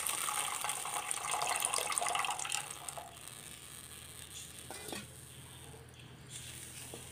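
Tamarind water being poured into a pan of hot lentil cooking water, a splashing pour that dies away after about three seconds into a faint simmer, with a wooden spatula stirring.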